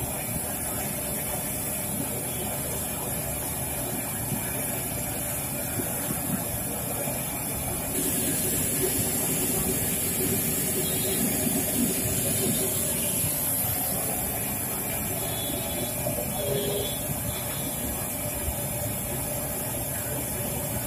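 Kachoris sizzling steadily as they deep-fry in a large pan of hot oil over a gas burner flame, a continuous hiss with a low rumble, growing a little louder for a few seconds around the middle.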